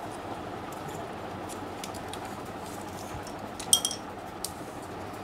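Parts of an HP LaserJet 1020 fuser unit being handled during reassembly: light clicks, with a sharp metallic clink about three-quarters of the way in, over a steady background hum.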